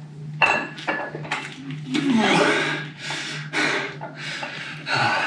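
A man breathing hard and fast through strenuous dumbbell reps, about two breaths a second, with a strained grunt falling in pitch about two seconds in. A steady low hum runs underneath.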